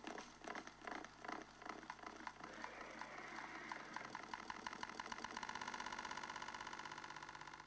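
Faint, fast, even pulsing like a small motor running, uneven at first and settling into a steady pulse about five seconds in, then fading out at the end.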